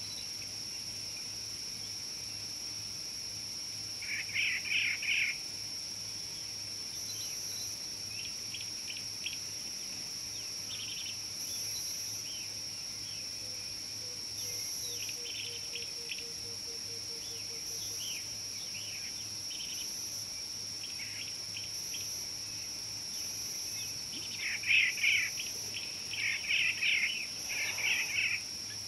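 Steady high-pitched drone of insects, with clusters of bird chirps about four seconds in and again, louder, near the end.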